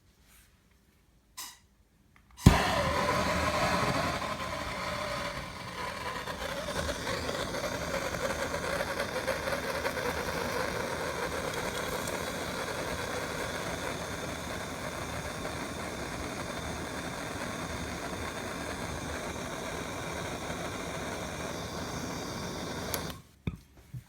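A faint click, then a handheld gas soldering torch lights with a sudden pop and burns with a steady flame hiss for about twenty seconds while it heats a fluxed copper pipe joint. The hiss is louder for the first couple of seconds, then steadies, and cuts off suddenly when the torch is shut off.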